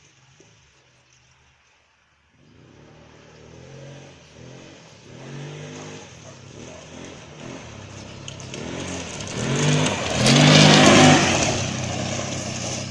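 Stels ATV engine revving in repeated throttle surges, each rising and falling in pitch. It starts about two seconds in and grows louder to its loudest near ten to eleven seconds, then eases slightly.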